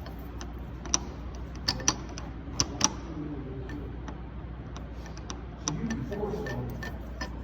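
A series of sharp clicks and taps at irregular spacing. The loudest cluster falls in the first three seconds, with fainter clicks after that, over a steady low hum.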